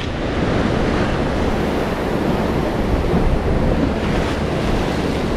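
Sea surf washing in, with wind on the microphone: a steady rushing noise.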